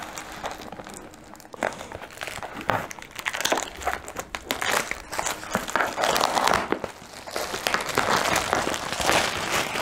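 Packaging of a diamond painting kit crinkling and rustling as it is handled and unpacked. It grows busier and louder in the second half.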